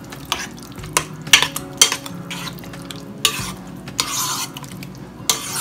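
A utensil stirring a thick mixture of chicken, cheese sauce and broken spaghetti in a bowl, with irregular clicks and scrapes against the bowl.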